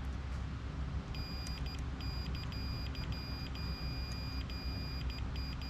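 Digital multimeter's continuity beeper sounding a high steady tone as the probes touch across a pin of a pinball trough board. The tone starts about a second in and cuts out briefly many times as the probe contact makes and breaks. A steady low hum runs underneath.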